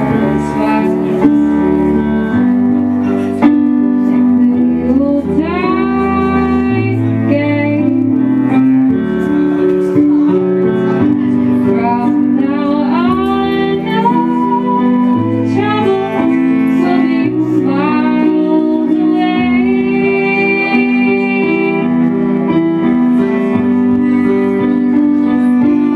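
Live acoustic-style music: electric keyboard and bowed cello holding sustained low notes, with a higher melody line that slides up into its notes over them.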